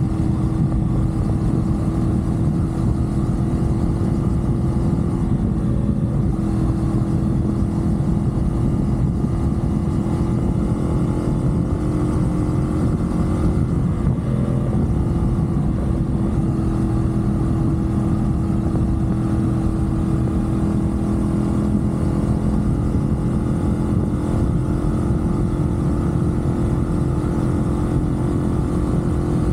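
CFMoto 450SR motorcycle's parallel-twin engine running at a steady cruising speed on an expressway, a constant drone that barely changes in pitch, over a steady rushing noise.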